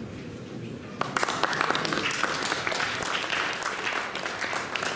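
Audience applauding, starting about a second in and running on as a dense, steady clatter of many hands clapping.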